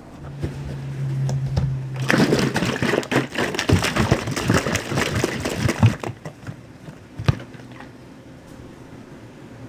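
Close-miked crunching and chewing in the mouth. Dense crackling starts about two seconds in and lasts about four seconds, then thins to scattered single crunches.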